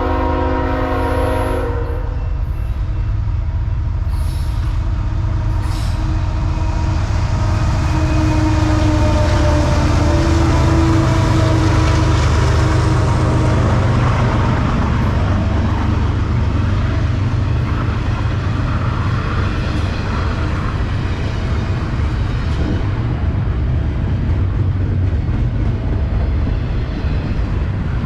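Diesel-electric freight locomotive's air horn sounding a chord that cuts off about two seconds in, then the steady, loud rumble of the locomotives and freight cars passing close by.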